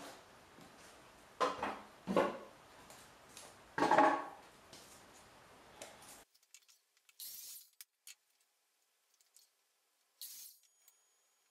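Boards and small wooden pieces handled and knocked against each other and the workbench: three louder wooden clatters in the first four seconds, then only a few faint scrapes and rustles.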